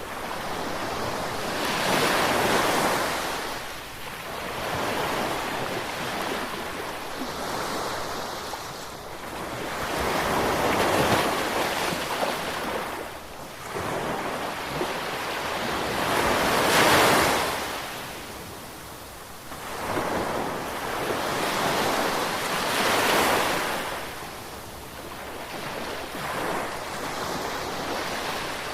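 Ocean surf: waves washing in and falling away, swelling and fading every few seconds, with a few louder surges.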